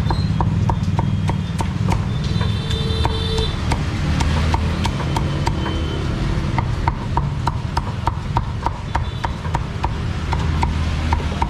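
A cleaver chopping roast pork on a thick wooden chopping block: a steady run of sharp, even knocks, about two a second, over a low steady rumble.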